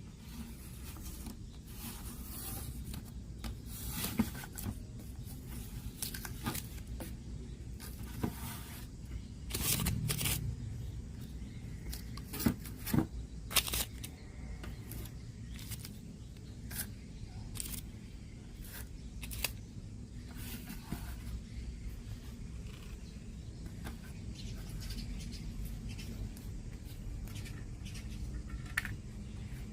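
Hands and tools at work on a portable radio cassette player: scattered clicks, taps and scrapes over a low steady hum, with a longer rustling scrape about ten seconds in and three sharp clicks a couple of seconds later.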